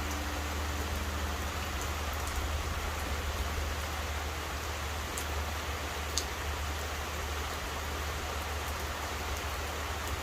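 Steady rain falling, with a couple of sharper drops about five and six seconds in. At the very start the low hum of the temple bell dies away.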